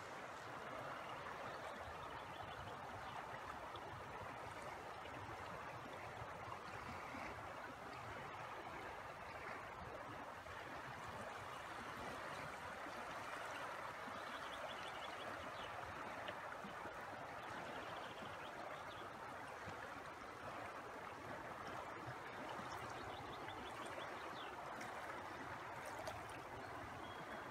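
Steady rushing of a wide, fast-flowing river current.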